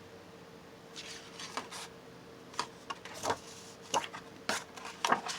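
Paper being cut by hand with scissors and handled: an irregular series of short snips and crinkly rustles, starting about a second in.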